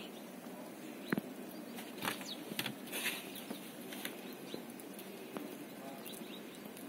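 Eurasian red squirrel gnawing a nut held in its paws: faint, irregular small crunches and clicks.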